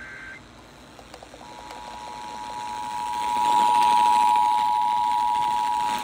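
Emergency Alert System two-tone attention signal from a clock radio's speaker: a steady paired tone that starts about a second and a half in and swells louder, heralding a severe thunderstorm warning broadcast. A short beep sounds right at the start, and a faint hiss of FM static lies underneath.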